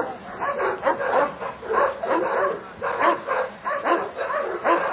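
Dobermann barking repeatedly, about two barks a second.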